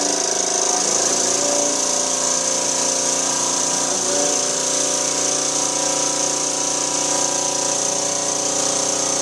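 Small student-built compressed-air engine with a flywheel running at speed, fed from an air blow gun: a steady whirring tone over a loud hiss of compressed air.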